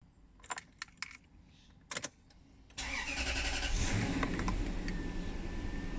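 A few clicks, then the Lexus LX470's 4.7-litre V8 starts about three seconds in, flares briefly and settles into an idle with an uneven low rumble. This is the rough idle that is being chased, a fault in which the engine also stalls.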